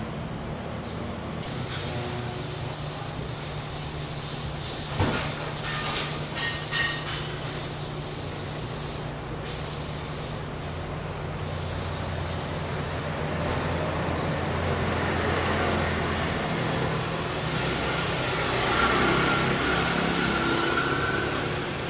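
Steady vehicle noise: an engine hum with a hiss over it, and a single sharp knock about five seconds in.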